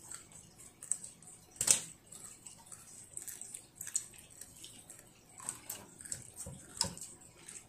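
Chopsticks clicking and scraping against a plastic plate as a child eats: a few scattered sharp clicks, the loudest about two seconds in.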